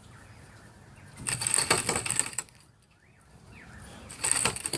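Two bursts of rapid metallic rattling, each about a second long: the first a little over a second in, the second near the end.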